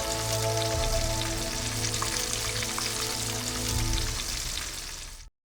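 Battered venison tenderloin strips frying in grease, a steady crackle and sizzle, under background music. The sound cuts off abruptly about five seconds in.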